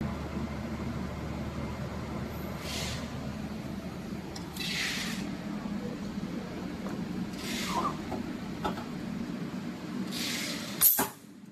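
Stud welder firing once: a single sharp, loud crack near the end as the gun welds a stud onto the metal plate. Before it, a steady hum with a few short hissing sounds.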